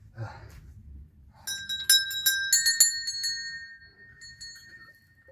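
Temple bells struck several times in quick succession, the metal ringing on and slowly fading after the last strikes.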